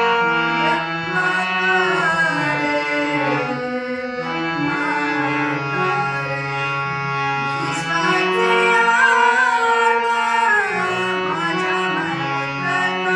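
Indian-style song: a voice singing held, ornamented notes that move step by step over pitched instrumental accompaniment.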